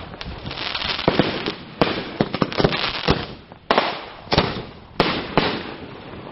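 Aerial fireworks going off: shells bursting with sharp bangs at irregular intervals over a dense crackle, with the heaviest bangs coming in the second half.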